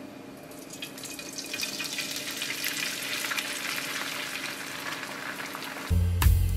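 Beaten eggs sizzling in hot oil in a frying pan as they are poured in and spread, the sizzle building over the first couple of seconds and then holding steady over a faint low hum. Music with a beat comes in near the end.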